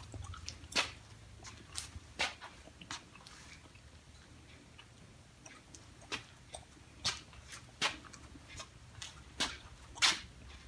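Scattered sharp clicks and knocks at irregular intervals, over a steady low hum.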